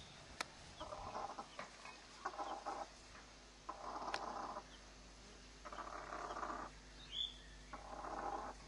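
Chickens: a Wyandotte hen calling in repeated bursts about a second apart, and a chick giving a short high peep about seven seconds in.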